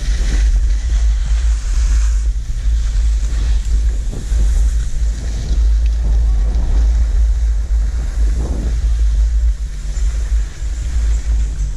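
Wind buffeting the microphone of a camera worn while skiing, a steady low rumble, with skis hissing and scraping over packed snow.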